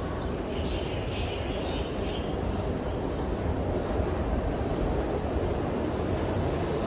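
Steady ambient noise of an MRT metro station with a low rumble throughout, and faint high chirps over it.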